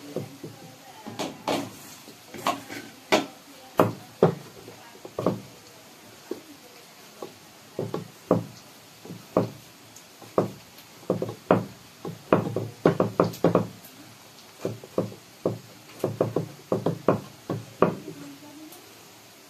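Maida (refined wheat flour) dough being kneaded by hand on a wooden chopping board: irregular dull knocks as the dough is pressed and pushed against the board, coming in quick runs of several a second in places.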